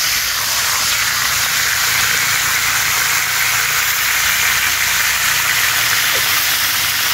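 Oil sizzling steadily in a frying pan around a whole water duck being fried.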